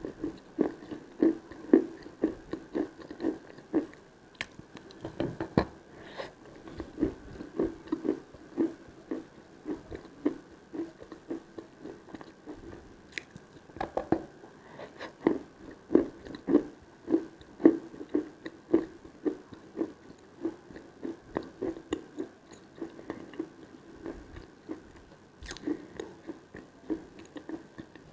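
Close-up chewing and crunching of lumps of Khrapovsky chalk in the mouth: a steady run of about two to three chews a second, with now and then a sharper crunch.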